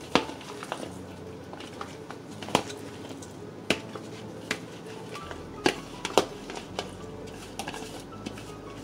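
Chopped vegetables and herbs dropped by gloved hands into a glass blender jar: irregular sharp knocks and clinks against the glass, about five of them loud, over faint background music.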